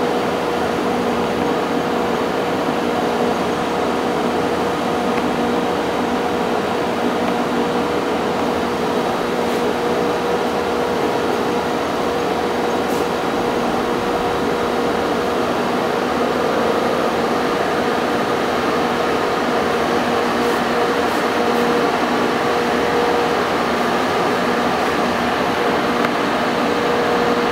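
Monarch 10EE precision lathe running under power: a steady mechanical whir with a faint steady hum.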